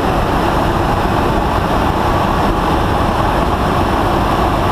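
Steady, loud rushing noise of a KC-135 tanker in flight, heard inside the boom operator's pod: airflow and jet engine noise with no change throughout.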